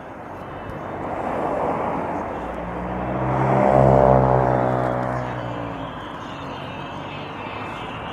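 Street traffic passing, with a car going by close about four seconds in: its tyre noise and engine hum swell to a peak, then fade away.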